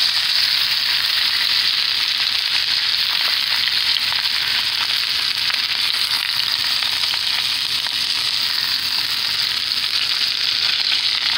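Beef roast searing in olive oil in a pan, the hot oil sizzling and crackling steadily.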